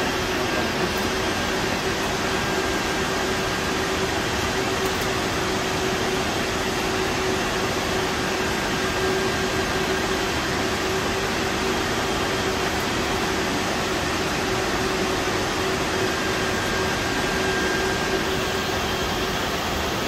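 Steady whirr of cooling fans in a room of rack-mounted network equipment, a wide even hiss with a constant hum tone running under it.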